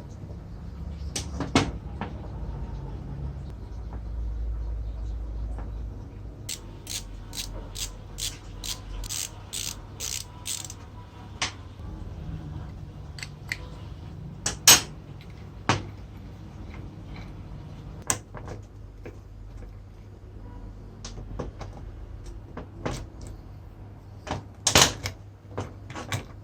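Tools and metal parts of a tile cutter being worked by hand: scattered sharp clicks and knocks, with a quick run of about nine even taps around the middle and a few louder single knocks.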